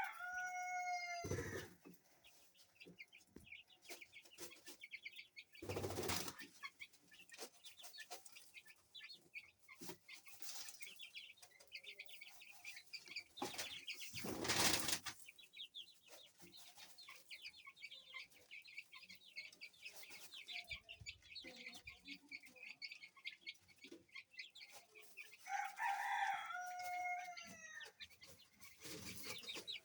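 Baby chicks peeping continuously in quick high chirps. A rooster crows twice, once at the very start and again near the end. A few brief loud rustling bursts come in between.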